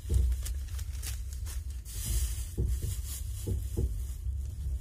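Passenger train carriage rolling, heard from inside: a steady low rumble with several short clunks from the wheels and running gear.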